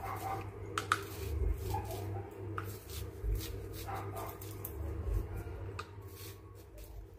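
A cleaver shaving kernels off a cob of sweet corn into a glass blender jar, giving sharp clicks and taps. A few short animal cries come in between.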